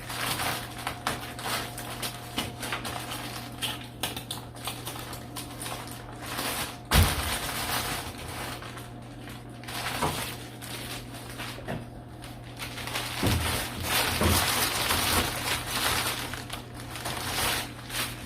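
Crinkling and rustling of a sheet of insulation and tape being handled and pressed into place, with one sharp knock about seven seconds in, over a steady low hum.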